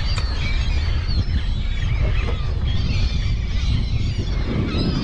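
A flock of seabirds crying over water as they feed on bait, many short wavering calls overlapping, over a heavy, steady rumble of wind buffeting the microphone.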